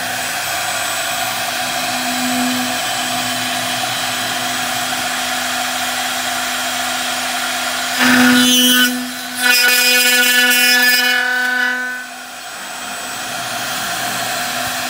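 Aluminium-profile CNC milling machine's spindle running with a steady hum. About eight seconds in, the end mill cuts into the aluminium profile: a louder, high-pitched cutting noise that breaks off briefly after a second, resumes, and drops back to the spindle hum about four seconds later.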